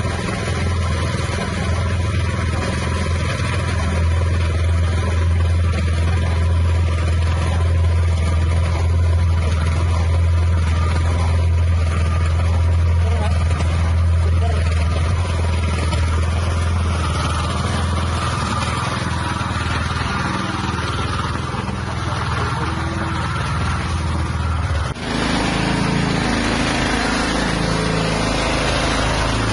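Livestock feed mixer machine running with a steady low drone and mechanical noise. The sound changes abruptly near the end, when the drone gives way to a rougher, noisier running sound.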